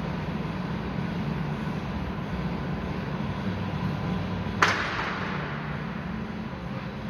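Steady low mechanical hum with one sharp knock about two-thirds of the way in, ringing off briefly.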